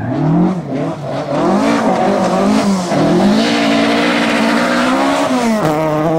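Ford Escort Mk2 rally car engine being driven hard on a gravel stage. The note climbs and dips several times as the revs rise and the driver lifts or shifts, then holds a steady high note for a couple of seconds. Near the end the revs drop suddenly to a lower steady note.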